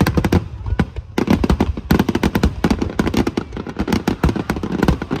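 Fireworks bursting in rapid succession: a dense run of sharp bangs and crackles, several a second.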